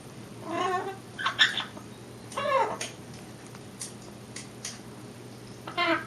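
Eclectus parrot calling in wordless, cat-like wavering cries, about four loud calls with a pause in the middle. A few faint, short high chirps come in the quiet stretch.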